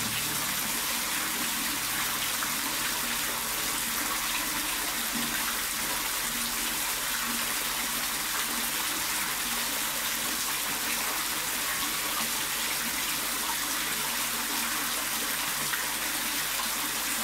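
A stream of water pouring into a concrete koi tank, splashing steadily on the water's surface.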